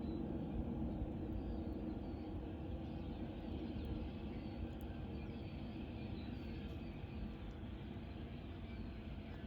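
Steady low traffic-like rumble, slowly easing off, with faint short high bird chirps repeating over it.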